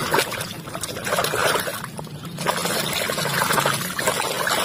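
Muddy water splashing and sloshing in a plastic tub as a hand swishes a toy car vigorously back and forth through it, in irregular surges.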